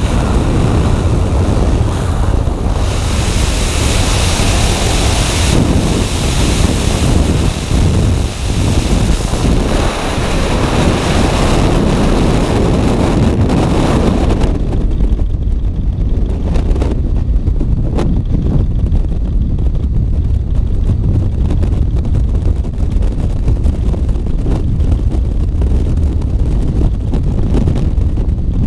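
Loud wind roar buffeting a skydiving camera's microphone: air rushing past outside the jump plane and in freefall. About halfway through the high hiss drops away, leaving mostly a low, steady rumble.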